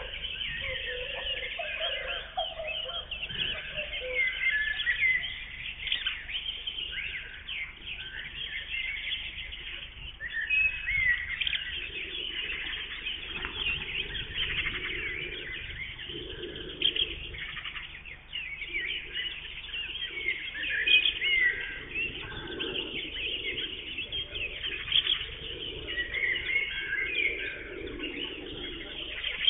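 Several songbirds singing and chirping together in a steady chorus of short, high calls and trills. From about the middle onward a lower-pitched sound repeats roughly every two seconds beneath them.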